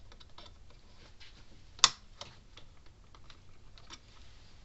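Small irregular clicks and taps of a screwdriver and a power-cord wire being worked into a circuit board's screw terminal, with one sharp click a little under two seconds in.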